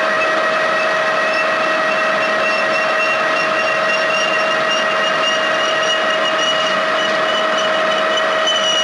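Metal lathe running at steady speed, its spindle and gear drive giving a constant whine of several steady tones, during a single-point threading pass on a half-inch shaft.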